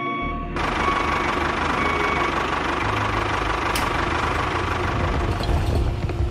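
Small motor of a miniature model construction machine running with a dense, even rattling noise that starts about half a second in. A reversing beeper sounds at the start and fades within the first two seconds.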